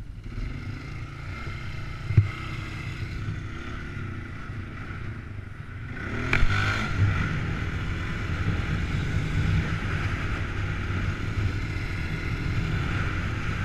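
Polaris Sportsman 500 H.O. ATV's single-cylinder four-stroke engine running as it is ridden, with a sharp knock about two seconds in. About six seconds in there is another knock and the engine gets louder, staying louder to the end.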